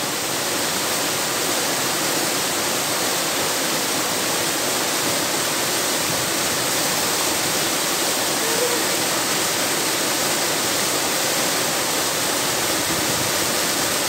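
Waterfall cascading down a sloping rock face into a plunge pool: a steady, unbroken rush of falling and churning water.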